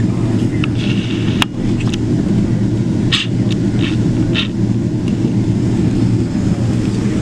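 Steady low rumble inside the cabin of a Boeing 777-200LR as it taxis, from its idling engines and rolling gear. A few brief faint clicks stand out over it.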